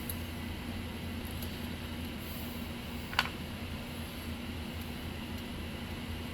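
Steady hum with a single short metallic click about halfway through, as small nuts are put back onto the studs by hand.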